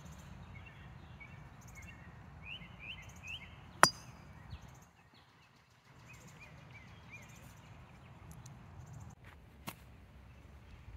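A junior golf driver striking a ball off the tee: one sharp crack with a brief ring, about four seconds in, the loudest sound here. A fainter second hit comes near the end, and birds chirp in short rising calls around the first hit.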